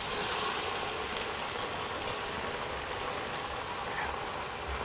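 Chakli deep frying in hot oil, sizzling and bubbling steadily, with a brief louder hiss at the start as another chakli is slipped into the oil.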